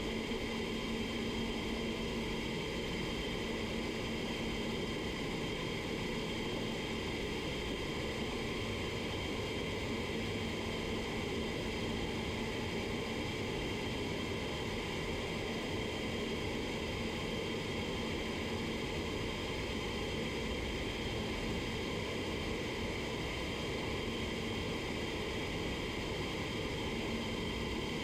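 Steady rushing fan and airflow noise with a faint hum, typical of a paint booth's ventilation running.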